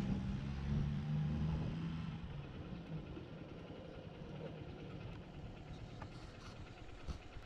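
Motorcycle engine running low and steady, fading out over the first two seconds or so as the bike comes to a stop. After that only faint background remains, with a few light clicks near the end.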